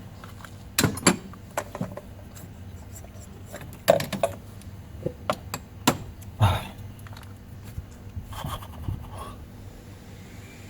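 Irregular metallic clinks, knocks and scrapes of hand tools and engine parts being handled during spark plug and ignition coil work.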